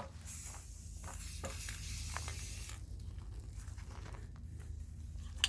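Aerosol spray paint can hissing on and off as black paint is dusted on, over a steady low hum.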